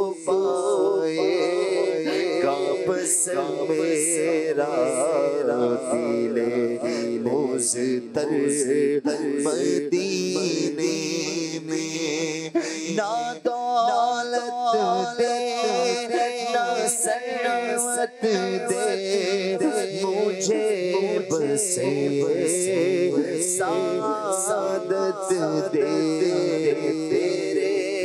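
Male voices singing an Urdu naat unaccompanied: a lead singer over a layered vocal backing, with no instruments.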